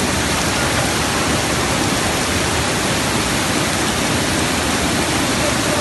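Heavy storm rain pouring down, a steady loud rushing hiss with no breaks.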